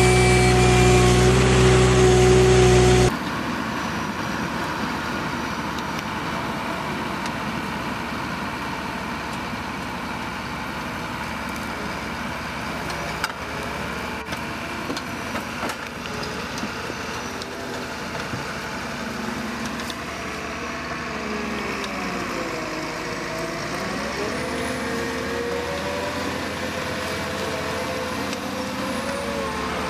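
For about three seconds a tree-spade machine's engine runs loud and steady, then cuts off abruptly. After that a Ponsse forestry forwarder's diesel engine runs steadily, its pitch rising and falling from about two-thirds of the way in as it revs.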